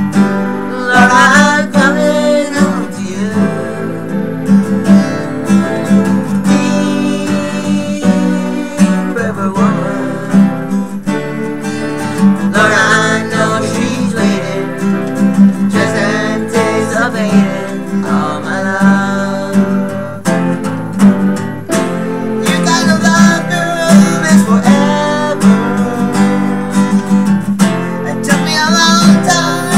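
Acoustic guitar strummed steadily, with a keyboard playing along.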